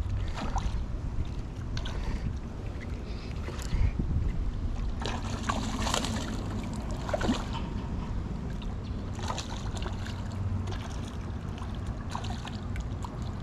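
A hooked peacock bass splashing at the water's surface, with the biggest burst of splashing about six seconds in. Steady wind rumble on the microphone runs underneath.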